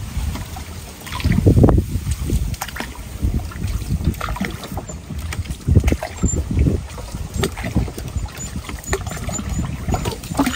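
Wind buffeting the microphone in irregular low gusts, with scattered light knocks.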